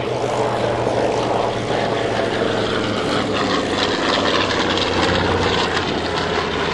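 Grumman Avenger's Wright R-2600 Cyclone radial engine and propeller running steadily at power as the aircraft passes close overhead.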